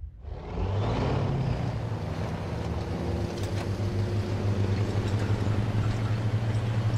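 Heavy armoured tanker truck's engine running hard at speed, a steady low drone over a rushing noise, coming in loud about half a second in.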